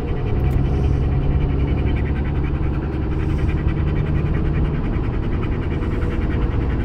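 German Shepherd panting quickly and evenly close to the microphone, over the steady low rumble of the car driving.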